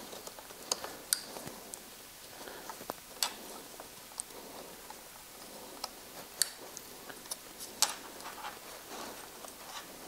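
Motorcycle ignition wires and their plastic connectors being pressed into a clip track by hand: irregular sharp plastic clicks and ticks over faint rustling of the wiring.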